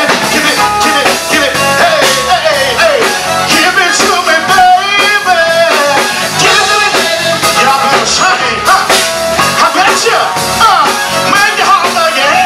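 A live band playing an upbeat groove on keyboard, drum kit and electric guitar, with vocalists singing over it into microphones.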